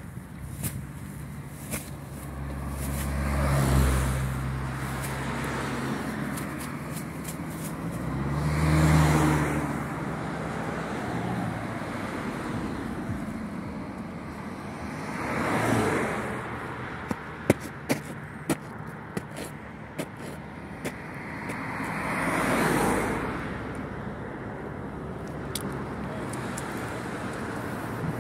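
Cars passing on a road one after another: four pass-bys, each swelling and fading, the first two with a low engine hum, over steady traffic noise. A scattered run of sharp clicks comes in the middle.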